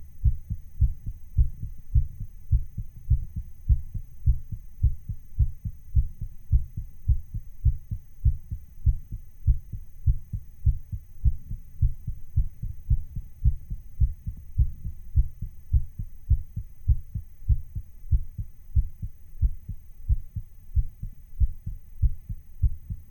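Human heartbeat recording, sped up a little: a fast, even lub-dub rhythm of low thuds.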